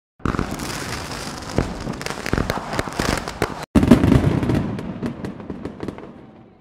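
A dense run of crackling pops and bangs, cut off for an instant about three and a half seconds in, loudest just after, then fading away near the end.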